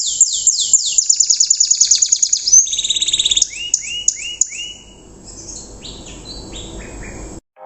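Domestic canary singing rough, rapid 'riwikan' trills: fast runs of repeated high downward-sweeping notes, shifting to slower, lower sweeping phrases about three and a half seconds in and growing softer. The song cuts off suddenly near the end.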